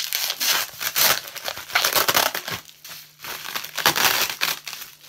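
Plastic bubble wrap crinkling and crackling as it is pulled and crushed off a wrapped plastic bottle, in irregular loud handfuls with a short lull just past halfway.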